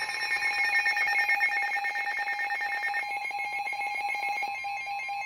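Weather alert radio's electronic alert alarm: several high tones pulsing rapidly, like a ringing bell, announcing an incoming severe weather warning. About three seconds in, part of the tone drops out while the pulsing goes on.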